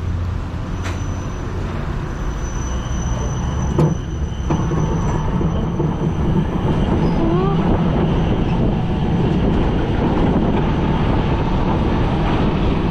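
Mountain-coaster cart rolling on its metal track, its wheels making a steady rumbling noise that grows louder about four to five seconds in as the cart picks up speed, just after a single sharp clack.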